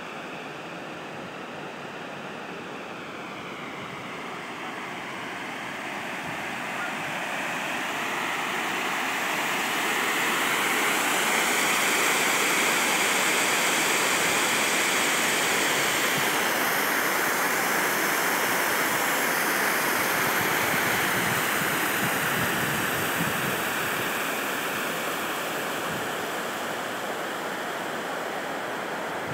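Water spilling over a low concrete dam, a steady rushing that swells louder about a third of the way in, holds, then eases off again near the end.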